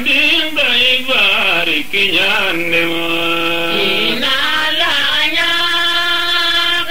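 A voice singing a slow, chant-like melody: ornamented notes that slide between pitches, then long held notes in the second half.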